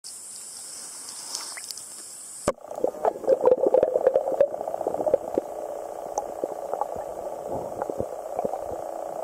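Wild stream ambience: a high steady hiss for about two and a half seconds, then, after an abrupt cut, a steady pulsing chorus with many scattered sharp clicks.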